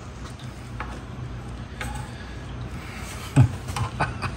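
A man laughs briefly about three seconds in, over a steady low hum and a few faint clicks.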